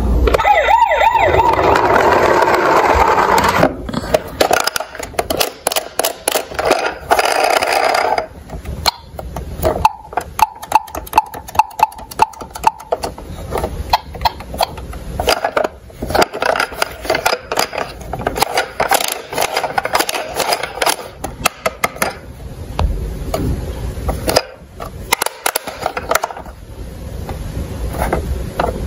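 Toy police car's electronic siren, a loud wavering wail, cuts off about three and a half seconds in. Quick plastic clicks and rattles follow as the toy cars are handled, with short snatches of electronic sound.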